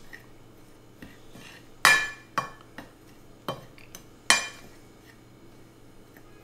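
A metal spoon clinks against a ceramic plate while stirring dry flour and herbs. There are several sharp clinks at uneven intervals, the loudest about two seconds and four seconds in.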